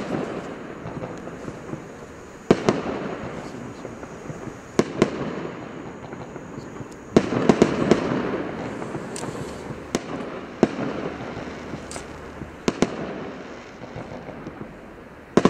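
Bluenight fireworks cake firing. It gives a sharp report every couple of seconds, with a quick cluster of several near the middle, and each is followed by a fading hiss and crackle of bursting stars.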